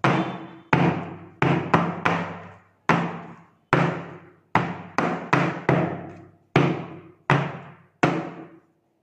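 Metal heart-shaped cake pan full of batter being rapped down on a table about a dozen times, sharp knocks, some in quick twos and threes, each ringing out briefly. The tapping knocks air bubbles out of the cake batter before baking.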